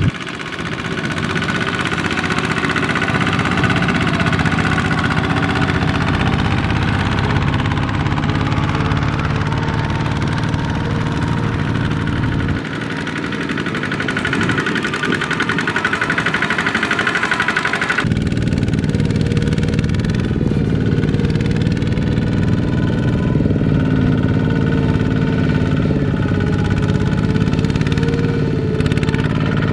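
Kubota two-wheel walking tractors' single-cylinder diesel engines running steadily as they haul trailers of rice sacks through soft mud. The engine sound changes suddenly about 13 seconds in and again about 5 seconds later, as one tractor gives way to another.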